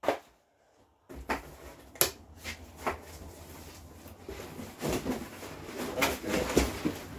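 Cardboard packing inserts being handled and pulled out of a chainsaw's corrugated shipping box: rustling scrapes and a string of sharp cardboard knocks.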